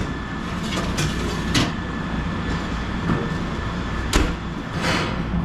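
Wire racks clinking and scraping as they are slid into the runners of a Moffat Turbofan convection oven, then the oven door pushed shut with a knock near the end, over a steady low rumble.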